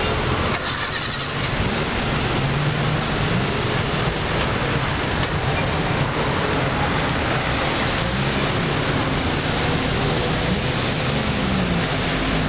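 Busy city street traffic: a steady wash of car engines and road noise from a slow queue of cars, with engine pitches wavering up and down.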